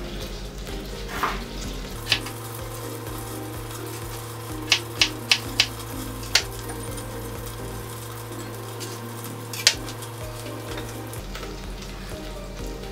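A chef's knife chopping potato on a plastic cutting board, about seven sharp knocks in all, four of them in quick succession near the middle. Under it, butter and garlic sizzle steadily in a pan.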